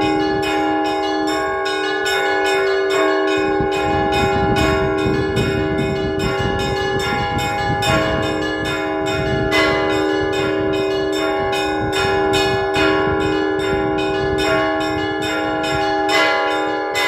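Orthodox church bells rung by hand by a single bell ringer: a quick, even run of strikes on the small bells, about three or four a second, over lower bells that ring on.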